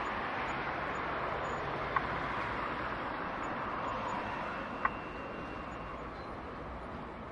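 A plains zebra grazing: two sharp snaps of grass being bitten off, about two and five seconds in, over a steady outdoor rush of noise.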